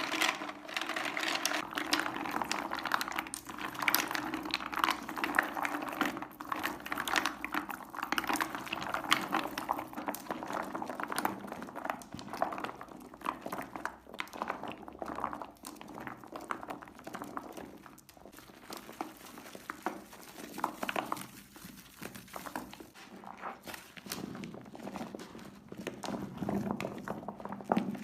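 Dry soap bars crackling and crunching as they are cut and crumbled, a dense run of small irregular cracks.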